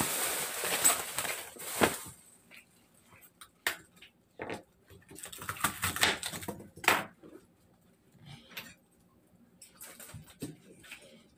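Plastic bag crinkling as bok choy is pulled out. Then, from about two seconds in, a knife taps and chops on a plastic cutting board in scattered strokes, busiest around six to seven seconds in.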